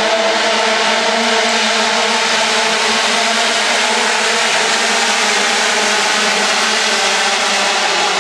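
A pack of 125cc two-stroke single-cylinder Grand Prix racing motorcycles accelerating away from the start grid together, many engines at high revs merging into one dense, steady sound.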